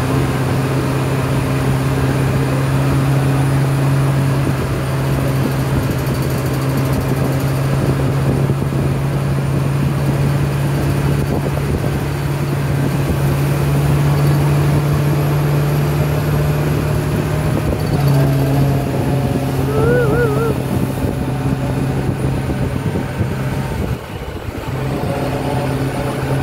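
Monster truck's engine running with a steady low drone as it drives along, heard from the open passenger bed amid road and wind noise. The engine note drops out briefly near the end, then returns.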